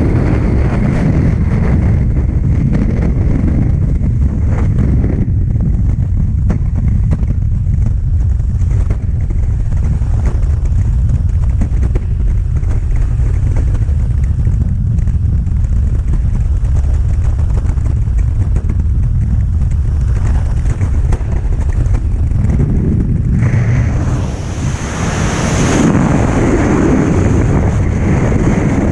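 Rushing air of a skydiving freefall buffeting the camera's microphone: a loud, steady low rush that turns hissier for a couple of seconds near the end.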